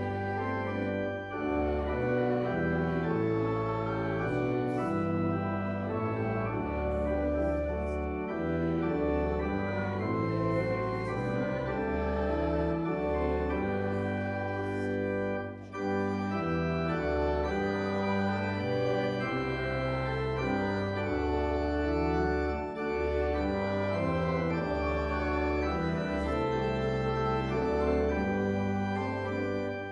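Church organ playing a hymn in sustained chords over a deep bass line, with brief breaks between phrases about halfway through and again a little later.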